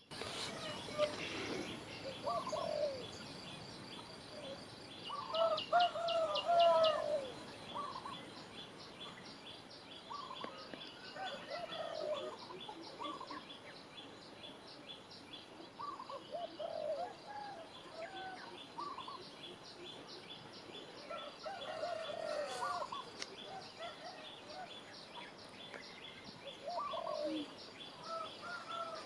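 Birdsong: a bird repeats a short phrase of sliding, warbled notes every few seconds. A fast, high chirping ticks on steadily underneath.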